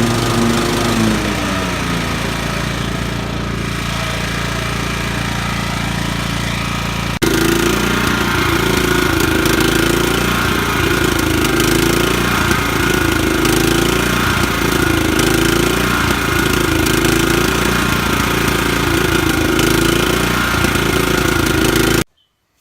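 Kohler Command CV14 single-cylinder mower engine running rough. Its speed drops over the first couple of seconds, then rises and falls rhythmically about every second and a half: it is hunting, leaning out and catching up again. The owner suspects a faulty carburettor float valve, or possibly the ignition.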